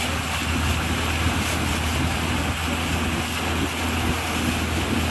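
A van's engine running steadily at low speed as its wheels push through floodwater, with a constant rush and splash of water thrown up around the tyres.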